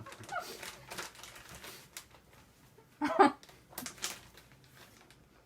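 Scattered light clicks and rustles of food being handled, with a short vocal sound about three seconds in.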